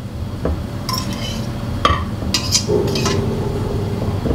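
Kitchen utensils clinking and knocking against dishes and a pan, several separate sharp clinks with a brief ring, over a steady low hum.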